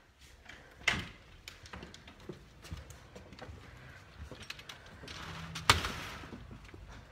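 A house door opening with a knock about a second in, then footsteps and small knocks on a wooden porch and steps, and a louder bang near the end.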